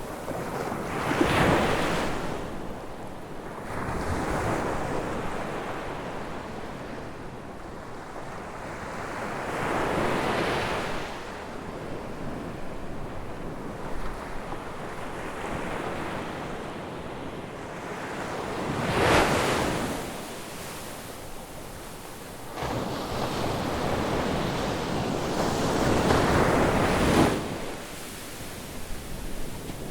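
Ocean surf: waves breaking and washing up the beach, in about five swells, with a steady wash of water between them.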